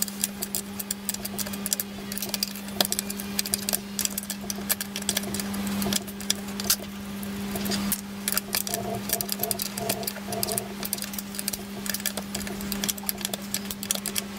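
Small bolts being undone with a spanner and hand tools on a metal bracket: many light metallic clicks and taps over a steady low hum.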